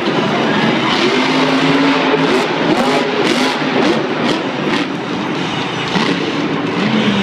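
Monster truck engines revving and running on the arena floor, their pitch rising and falling, with the din of the stadium around them.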